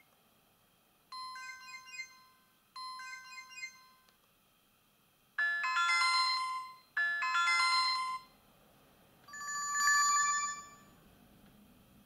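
Alcatel 2057 flip phone's built-in message alert tones previewed one after another through its small speaker as the tone list is scrolled. A short electronic melody plays twice, then a louder, fuller chime plays twice, then a single ringing chime comes near the end.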